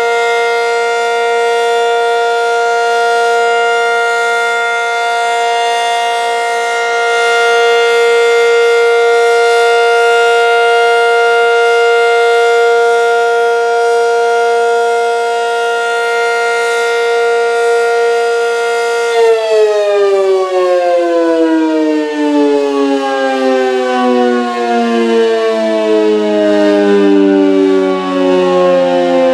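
An ACA Super Banshee (Banshee 120) electromechanical warning siren sounding its steady alert tone, pretty loud. About two-thirds of the way in it shuts off and winds down, the pitch falling slowly: the end of its one-minute noon alert blast.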